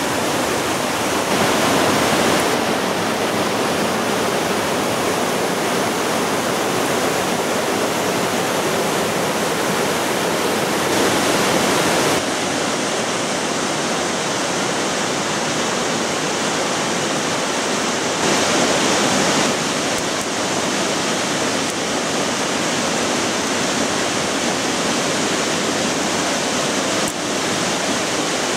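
Whitewater mountain river rushing over rocks in rapids: a steady, loud rush of water that changes tone abruptly a few times.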